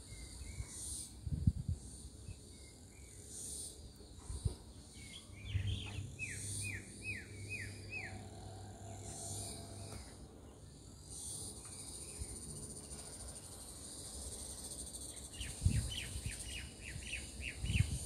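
Oriental magpie-robin calling in quick runs of short, falling whistled notes: about five notes some five seconds in and about eight near the end. Under them runs a steady high insect buzz that swells and fades every few seconds, and a few dull low thumps are heard.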